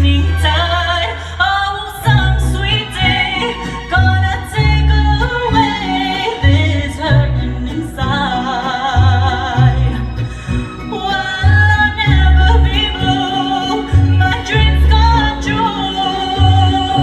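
A mariachi band playing: vibrato violins and singing over a bass line of short, pulsing low notes.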